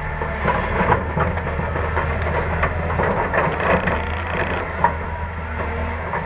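Caterpillar hydraulic excavator's diesel engine running steadily while loading coal into a dump truck, with an irregular clatter of coal lumps dropping from the bucket onto the load in the steel truck bed.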